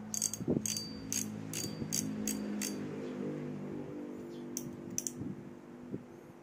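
Seahawk Carbon Pro 1000 spinning reel clicking as its spool front is turned by hand, about two sharp ratchet clicks a second for three seconds, then two more clicks later, over background music.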